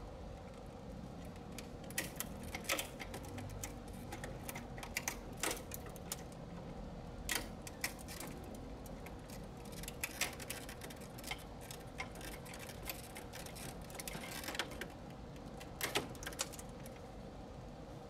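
Irregular clicks and rattles of gloved hands working among the wiring, connectors and circuit boards inside an air conditioner's metal electrical box, over a steady faint hum.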